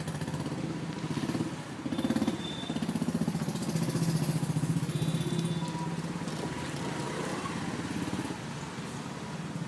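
An engine-like motor sound running with a rapid, even pulse over a steady low hum. It is louder for a few seconds in the middle.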